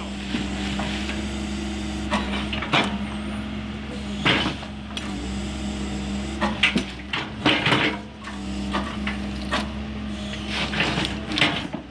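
Doosan DX140W wheeled excavator's diesel engine and hydraulics running steadily as its railway attachment works at a sleeper, with sharp knocks and clanks of the steel attachment against sleeper and ballast scattered throughout, several close together near the end.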